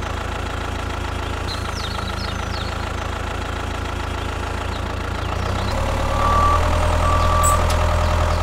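Tractor engine running steadily with a low rumble. It grows louder about six seconds in, and a few faint high chirps come early on.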